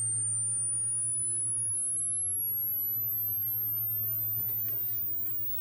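A pure sine test tone from a hearing test sweeping steadily upward in pitch. It climbs to very high and then cuts off about five seconds in. A low steady hum sits faintly underneath.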